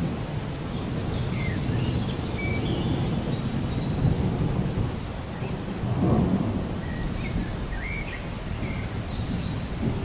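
Rain falling with a low, rolling rumble of thunder that swells about six seconds in. A few short bird chirps sound here and there above it.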